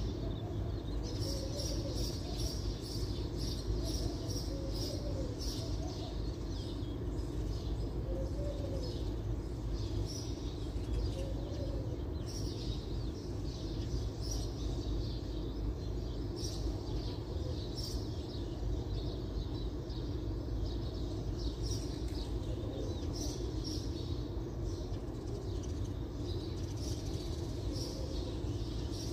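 Small birds chirping again and again, over a steady low rumble.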